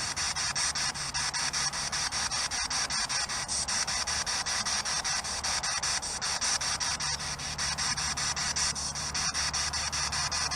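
Radio static from a ghost-hunting spirit box sweeping through stations: a steady hiss chopped by rapid, evenly spaced clicks, over a low hum.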